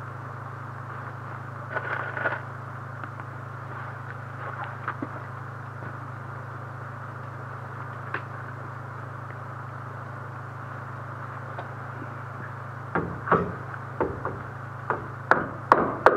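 A steady low hum under a run of knocks on timber. A few light taps come about two seconds in, then a quick series of about seven hammer blows in the last three seconds, roughly two a second and getting louder, as framing lumber is struck or nailed.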